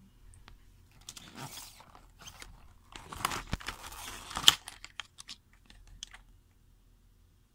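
Rustling and crinkling handling noise with scattered clicks, loudest from about three seconds in, with one sharp click near the middle, then dying away to a few small clicks.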